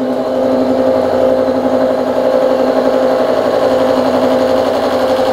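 Milling machine face mill taking a light first facing cut across a steel block. The cut runs as a steady hum with a few fixed tones over a rough grinding noise.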